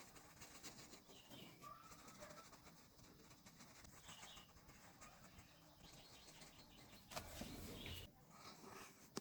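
Near silence: faint room tone with a few faint short chirps and a brief rustle about seven seconds in.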